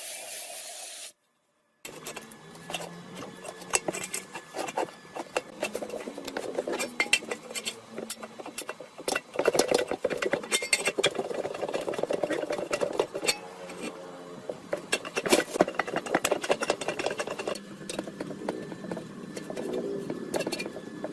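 Metal parts and hand tools clinking and tapping in irregular rapid succession, as in hands-on engine repair work.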